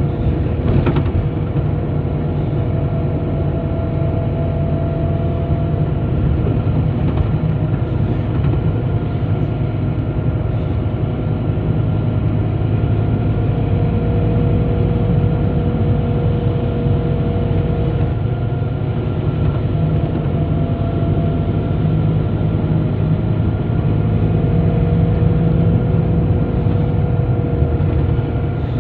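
Cabin noise inside a moving Scania K94IB coach: the rear-mounted diesel engine and road noise make a steady low drone, with a faint whine over it and a few light rattles from the ageing 15-to-16-year-old body.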